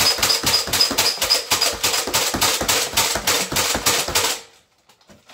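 Nerf Alpha Trooper pump-action foam dart blaster slam-fired rapidly: a fast, even clatter of pump strokes and shots, about six a second, that stops suddenly about four seconds in. A thin high squeak runs through the first two seconds, which the shooter puts down to the epoxy on the tube.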